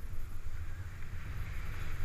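Wind buffeting the microphone of a GoPro Hero 3 as a steady low rumble, over the continuous hiss of a snowboard sliding on snow.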